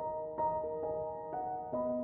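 Background music: a slow keyboard melody with single sustained notes, a new note struck about every half second.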